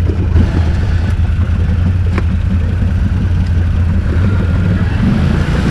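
ATV engine idling, a steady low drone with no revving.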